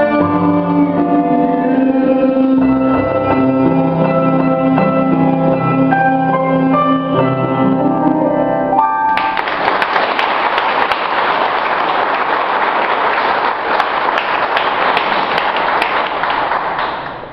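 A choir singing the last held chords of a song, ending about halfway through, followed at once by audience applause that runs for several seconds and dies away near the end.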